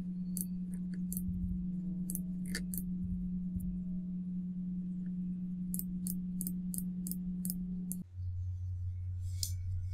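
Computer mouse clicking: scattered single clicks, then a quick run of about four clicks a second lasting some two seconds. A steady low hum runs underneath and drops in pitch about eight seconds in.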